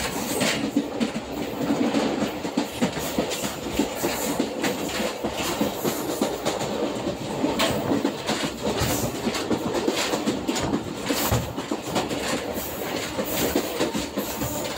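Sagardari Express passenger train running at about 75 km/h, its wheels clattering over the rail joints with a continuous rumble and irregular sharp clacks, heard from on board.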